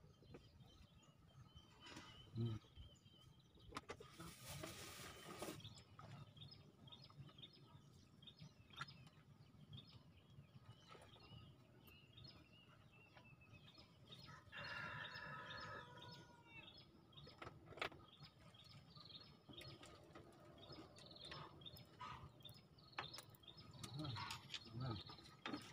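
Near silence with faint, scattered bird chirps and light clicks, and a brief hiss about four seconds in.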